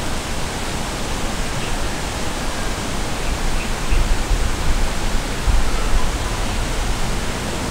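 Steady rushing outdoor noise, with low rumbling swells about four and six seconds in.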